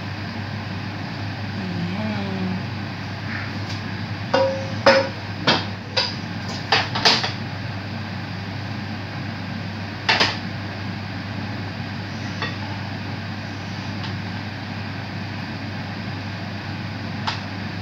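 A wooden spatula knocking and scraping against a non-stick frying pan and a plate while vegetables are scraped out of the pan: about six sharp knocks in quick succession a few seconds in, then single knocks later, over a steady low hum.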